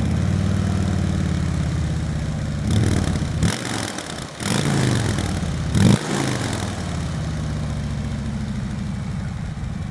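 2019 Harley-Davidson Ultra Limited's Milwaukee-Eight 114 V-twin, on stock intake and exhaust, idling just after startup. It is revved three times in quick succession in the middle, then settles back to a steady idle.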